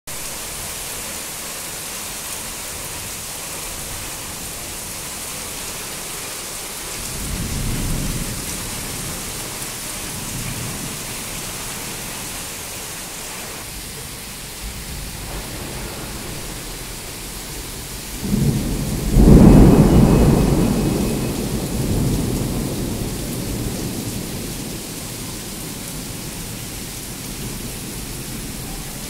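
Heavy rain falling steadily, with a low rumble of thunder about seven seconds in. About two-thirds of the way through comes a much louder thunderclap that rolls away over several seconds.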